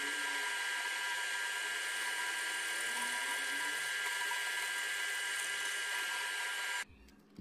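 Small drill press running with a steady high whine as its twist bit bores a hole into a wooden block. It stops suddenly near the end.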